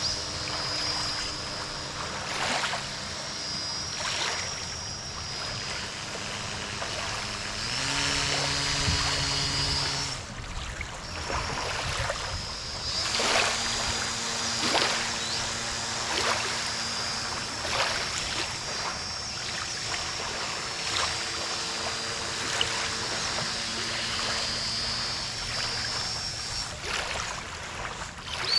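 Electric motor and propeller of a home-built radio-controlled boat running on the water, its whine stepping up and down in pitch several times as the throttle changes. Short splashes of water come in between.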